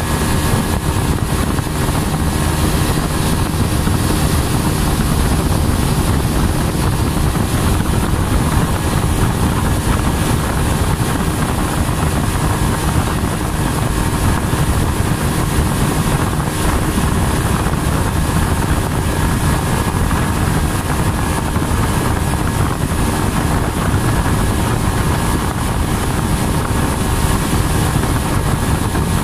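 A river boat's outboard motor running steadily while under way, a constant unbroken drone.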